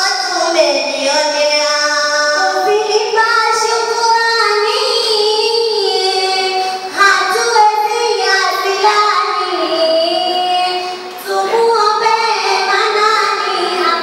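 Two girls chanting a Swahili utenzi verse poem in a sung melody with long held notes, taking turns on the lines.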